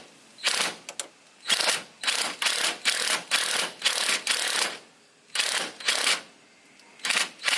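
Ratchet wrench clicking in short, repeated strokes, in quick runs with brief pauses, working a suspension bolt.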